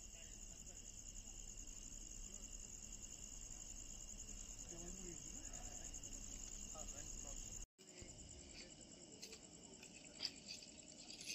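Insects chirring faintly in a fast, steady high trill, with a few faint distant voices. The sound drops out for a moment about two-thirds of the way through, then comes back weaker with a few sharp clicks.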